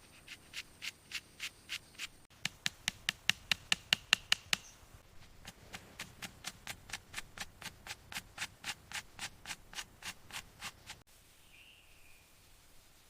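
A hand tool working wood in quick, even strokes, about four a second, in three runs, the middle run loudest. The strokes stop about eleven seconds in.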